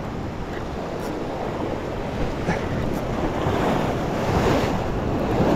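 Ocean swell breaking and washing against a rock ledge, with wind buffeting the microphone. The surge grows louder in the second half.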